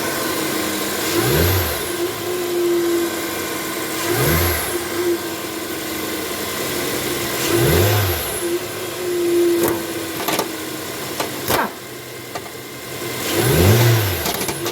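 Car engine revved in four short blips about three seconds apart, each rising and falling back to idle, over a steady hum. A few sharp clicks come near the end.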